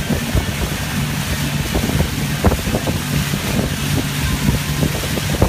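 Motorboat engine running at speed, a steady low hum, under wind buffeting the microphone and the rush of the churning wake.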